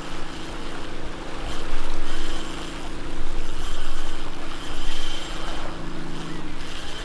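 Wind gusting over the microphone and sea surf, swelling loudest about two, four and five seconds in, over a steady low hum.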